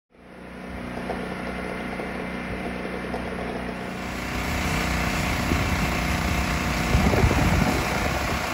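Chainsaw's small two-stroke engine running, getting louder from about four seconds in.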